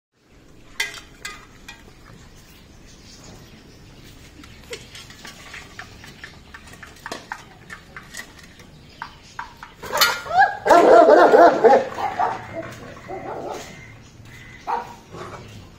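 A dog eats from a steel bowl with scattered sharp clicks and clinks, then a dog breaks into a loud burst of barking about ten seconds in, lasting about two seconds.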